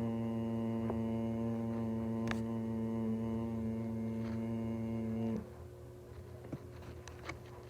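Emergency Alert System attention signal: a steady, buzzy two-tone alert that cuts off abruptly about five seconds in. A faint low hum with a few small clicks remains, the pause before the spoken test message.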